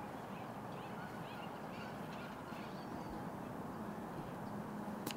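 Faint bird calls, which the tagger takes for geese, over a steady background noise, with a single sharp click about five seconds in.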